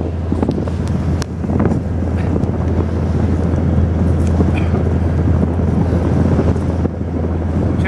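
Wind rushing over the microphone aboard a moving boat, over the boat engine's steady low drone.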